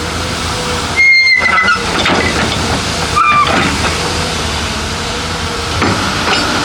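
Heavy earthmoving machinery running steadily, with short high-pitched squeals about a second in and again around three seconds in.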